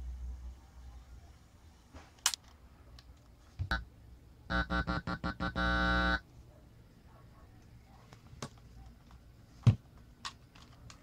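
A few sharp handling clicks, then a loud electrical buzz from powered speakers about halfway through. The buzz stutters on and off, holds for about half a second and cuts off abruptly as the loose 3.5 mm audio plug is handled. A single thump comes near the end.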